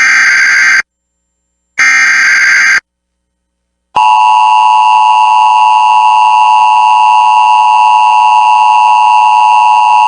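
Emergency Alert System SAME data header: two one-second bursts of warbling digital data noise about a second apart. About four seconds in, the steady EAS attention tone starts and holds, signalling the start of a Required Monthly Test alert.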